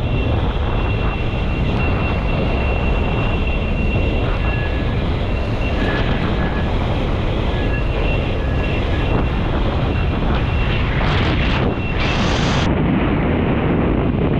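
Heavy wind rushing over the microphone of a kitefoiler riding at speed, with a thin high whistle that cuts in and out, typical of a hydrofoil singing through the water. The sound changes abruptly near the end.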